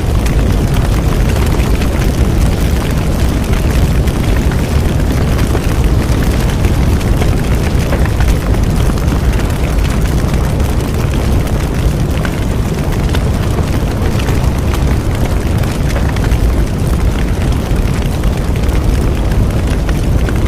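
Bonfire burning steadily: a continuous low rumble of flames with many small, irregular crackles and pops of the burning wood.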